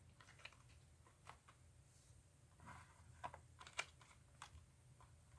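Near silence with a few faint, scattered clicks and taps of small objects being handled.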